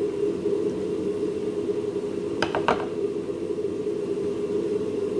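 Corded electric hand blender running steadily as it mashes cooked potatoes in a glass bowl, with a few quick clinks against the bowl about two and a half seconds in.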